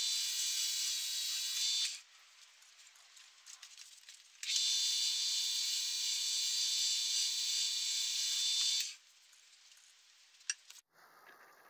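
Small Harbor Freight wood lathe running with a steady whine while sandpaper hisses against the spinning cherry spindle. The sound cuts off abruptly about two seconds in, comes back about four and a half seconds in, and cuts off again near nine seconds, followed by a single click.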